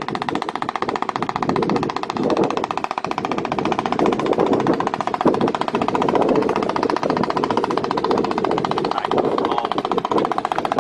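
A small engine running steadily, a rapid even pulsing that holds throughout.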